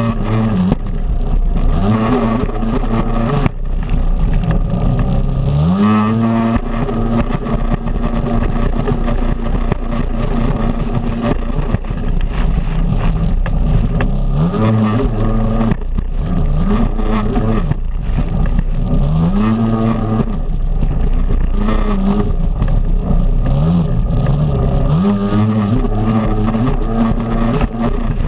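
Jet ski engine racing, its pitch sweeping up again and again as the throttle is opened and eased, over the rush of water and spray.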